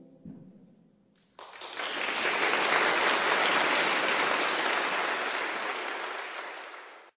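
Audience applause that starts about a second in, swells quickly to a steady full clapping, and cuts off suddenly near the end, following the last fading chord of the performance.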